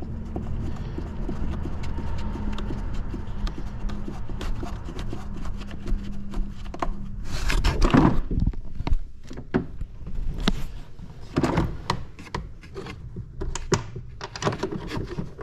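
Hands working under plastic jet ski body panels with a ratchet and extension: a rubbing scrape about eight seconds in, then scattered irregular clicks and knocks of tool and plastic. A steady low hum sits under the first several seconds and stops about seven seconds in.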